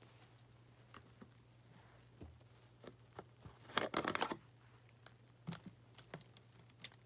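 Plastic bottle of Fabuloso cleaner handled close to the microphone: a short burst of crinkling and crackling about four seconds in, then a few small clicks as its cap is taken off.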